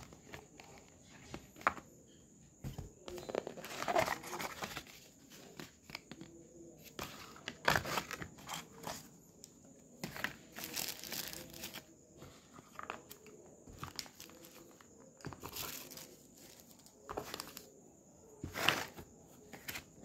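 Cardboard phone box and paper packaging being handled: irregular rustling and crinkling with scattered sharp clicks and knocks as the box is unpacked.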